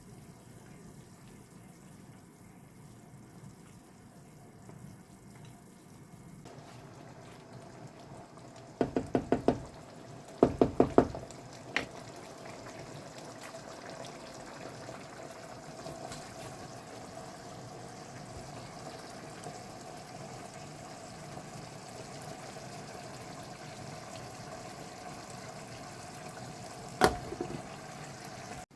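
Kitchen work sounds: two quick runs of about five sharp knocks each, a single knock soon after, and one more knock near the end, over a steady hum that starts a few seconds in.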